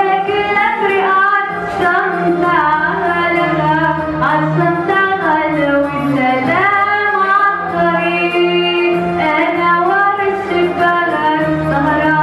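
A woman singing an Egyptian Arabic song solo into a microphone, with gliding, ornamented held notes.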